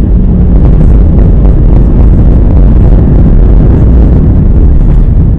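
Loud, steady low rumble of an Airbus A319's engines and airframe, heard from inside the passenger cabin.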